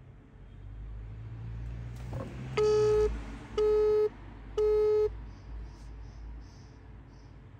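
Telephone busy tone from an iPhone on a call that did not connect: three beeps of one steady tone, each about half a second long with half-second gaps. The network is reporting the called phone as busy.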